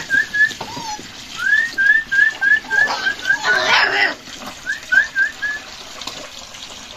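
A litter of hungry puppies whimpering and yipping in quick runs of short, high, rising cries as they crowd a bowl of milk. A brief splashing noise comes a little before four seconds in, as milk is poured into the metal bowl.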